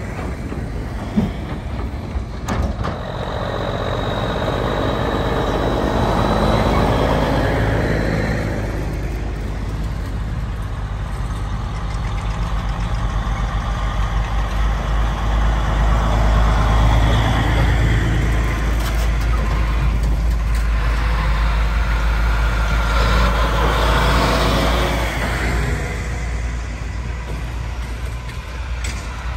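Heavy diesel farm machinery running: a steady low engine drone that swells louder twice, as machines come close, with a couple of sharp clicks near the start.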